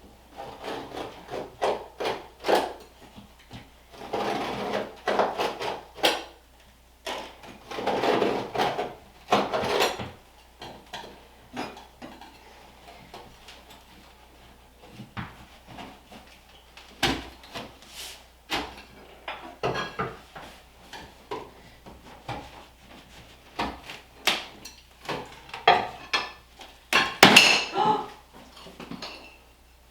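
Ceramic backsplash tiles being pried and scraped off a wall with a metal tool: irregular sharp knocks and clinks with stretches of scraping, the loudest clatter near the end.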